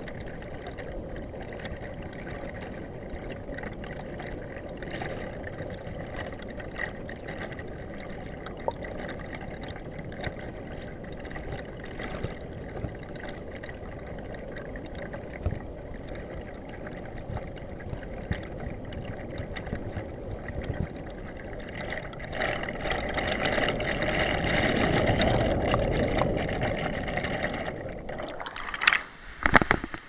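Stream current and bubbles rushing and gurgling, heard through an underwater camera. It swells louder for a few seconds in the last third, and a few sharp knocks come just before the end.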